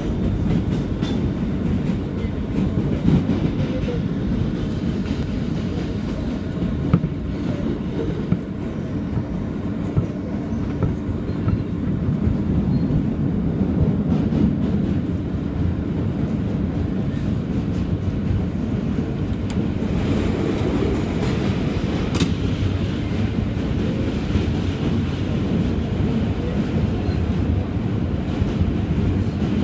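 Subway train running over a steel bridge, heard from inside the car: a steady, dense rumble of wheels on rail with scattered clicks and clacks. About two-thirds of the way through, a brighter hiss joins the rumble.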